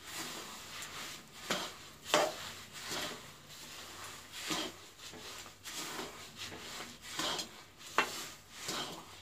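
Metal spatula stirring roasted sesame seeds through hot jaggery syrup in a metal kadhai, a rough scrape against the pan with each stroke, about one a second.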